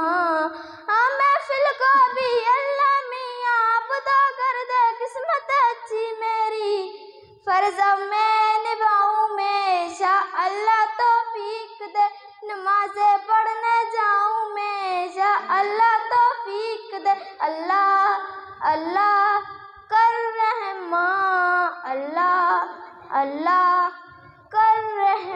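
A schoolgirl singing an Urdu Islamic devotional song, unaccompanied, into a microphone: one melodic voice in long held phrases with short breaths between them.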